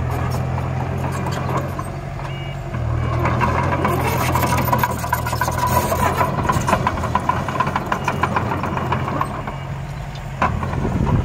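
Diesel engine of a small earthmoving machine running, its note dropping about two seconds in and picking up again a second later, with a stretch of rattling and clanking from about four to seven seconds in.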